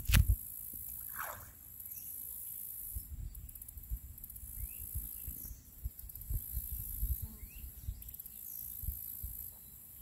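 Summer pond-side ambience: a steady high drone of insects with faint, scattered bird chirps and irregular low rumbles. A brief thump right at the start is the loudest sound.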